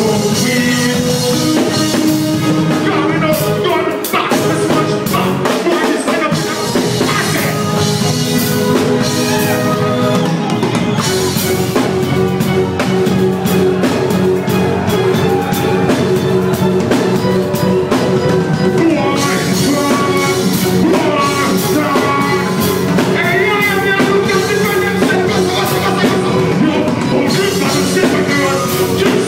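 Live concert music: a reggae band playing steadily, with a singer's voice over it.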